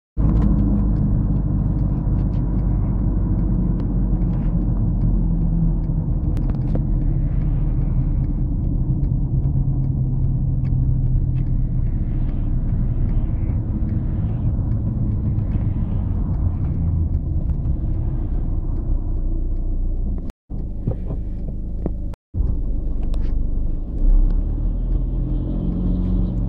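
Steady low rumble of a car's engine and tyres on the road, heard from inside the cabin while driving. The sound cuts out briefly twice near the end.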